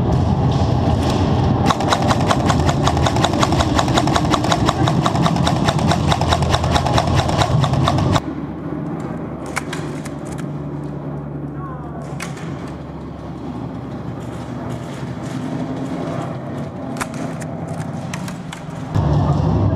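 Airsoft rifle firing a long full-auto burst of rapid, evenly spaced shots for about six seconds, starting a couple of seconds in, over a steady low rumble. The rumble cuts out about eight seconds in, leaving scattered sharp clicks and snaps, and comes back near the end.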